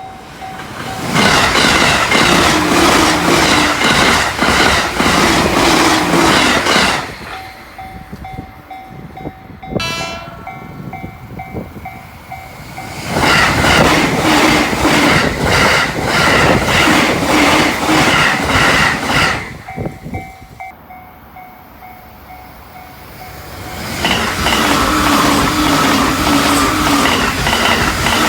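Three Joban Line trains pass one after another at over 120 km/h, each a loud rush with a rapid, even clatter of wheels over rail joints. In the gaps between them a level-crossing warning bell dings steadily.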